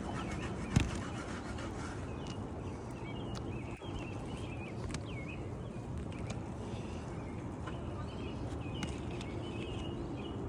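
Birds chirping and singing over a steady outdoor background, with a single sharp knock about a second in.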